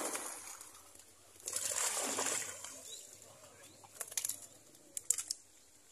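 Water splashing at the pond's edge in two bursts, one at the start and a longer one from about a second and a half in, as a hand thrashes in the water at the bank. A few short, sharp rustles and clicks follow near the end.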